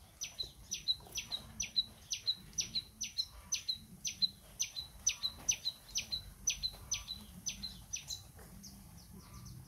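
A small bird calling from the surrounding trees: one high two-part call, a quick falling note then a short clipped one, repeated at an even pace about three times a second, stopping near the end.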